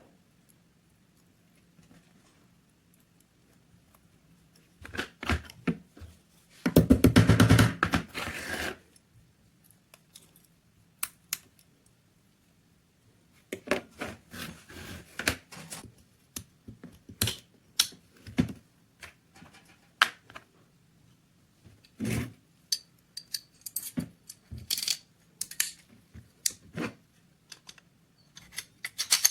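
Irregular clicks and knocks of small hard parts being handled, with a loud rapid rattling buzz lasting about two seconds about a quarter of the way in.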